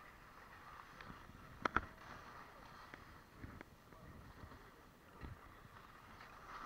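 Skis sliding and scraping over packed snow on a downhill run, a faint hiss, with two sharp clicks close together about two seconds in.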